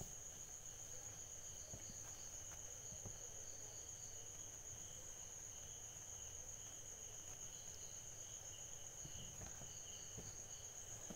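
Faint crickets chirping steadily in the background, with a few soft utensil knocks.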